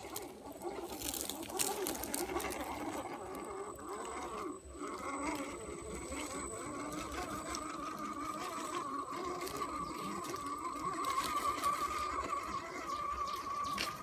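Small electric motor of an MN999 1/10-scale RC off-road truck whining as it drives, with scattered clicks and crackles. The whine drops out briefly about four and a half seconds in, then holds steady and grows a little louder toward the end.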